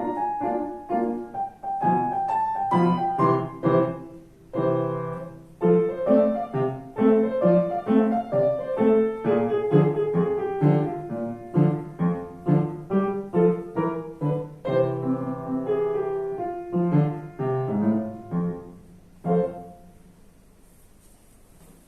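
Piano playing a melody over chords at a steady pace, ending on a final chord about 19 seconds in that rings out and fades.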